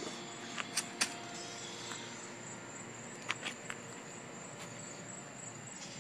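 A sheet of paper handled in the hand: a few light crackles about half a second to a second in and again after about three seconds, over a steady hiss with a faint high whine.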